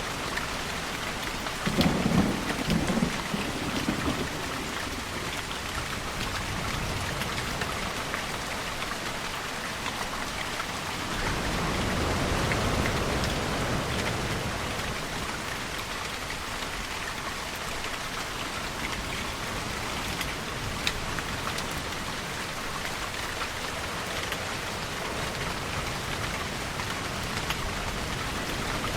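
Steady heavy rain falling, with a crackling rumble of thunder about two seconds in, and a softer, longer swell of rumbling noise around the middle.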